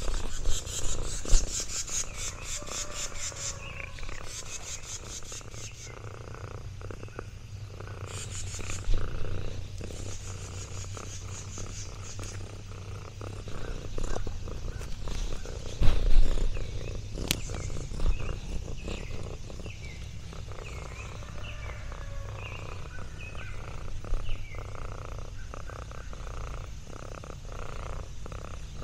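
Orange tabby cat purring steadily. Fast high pulsing chirring comes and goes in the background.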